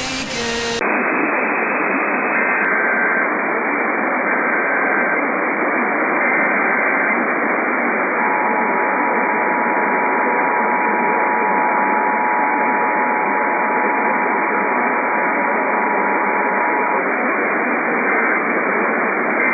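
Emergency Alert System test received over a hissy, static-filled radio. Three short warbling SAME data header bursts about two seconds apart are followed by the two-tone EAS attention signal, held steady for about nine seconds. Short data bursts return near the end.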